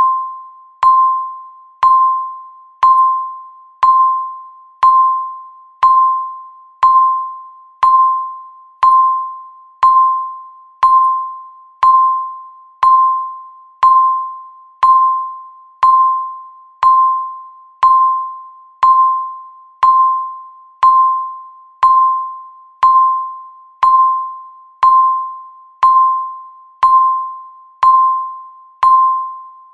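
Countdown timer tick sound: a short, clear electronic ping struck once every second, each one fading quickly before the next.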